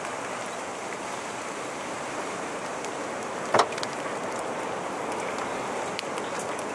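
Steady rushing of wind and rain close to a tornado, with scattered small ticks and one sharp knock about three and a half seconds in.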